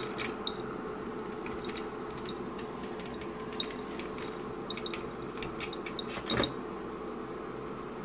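Scattered small plastic clicks and taps as a speedometer instrument cluster's circuit board is handled and lifted off its plastic housing, with a louder clatter about six seconds in, over a steady background hum.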